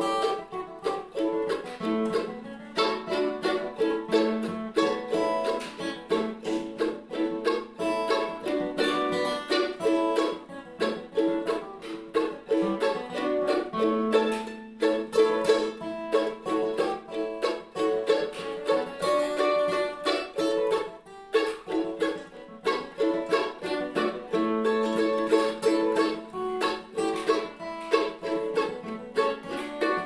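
An acoustic guitar and a mandolin playing a tune together, in a steady run of quick picked notes.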